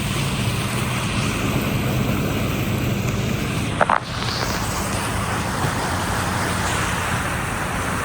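Floodwater rushing steadily, with a low hum underneath. A brief sharp chirp comes about four seconds in.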